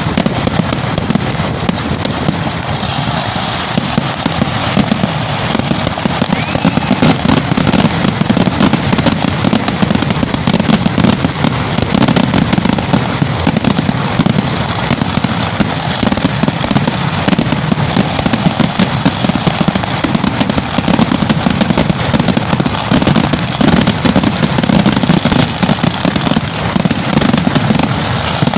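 Vedikkettu fireworks: a loud, dense, unbroken barrage of firecracker bangs going off in rapid succession without a pause.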